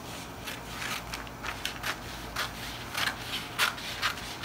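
Scissors snipping through pattern paper in a run of short, sharp cuts, about two a second.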